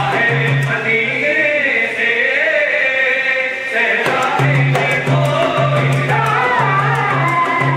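Manqabat, an Urdu devotional song, sung with a wavering, ornamented melody over a steady rhythmic beat; the beat drops out about a second in and returns about four seconds in.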